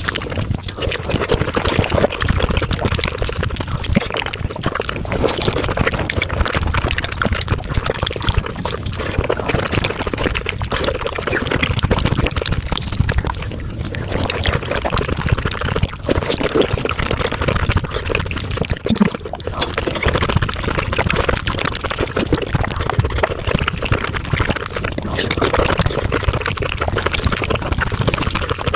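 Close-miked wet slurping and chewing of raw oysters, sped up about five times, so it runs as a dense, unbroken stream of fine wet clicks and squelches.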